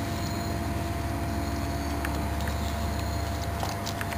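A steady low motor-like rumble, with a few faint sharp clicks as a raccoon chews hard acorns.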